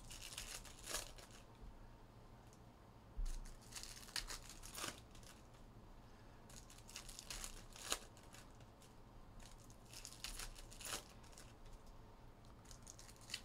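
Trading-card packaging being torn open and crinkled by hand, in several short bursts of tearing spread through the stretch.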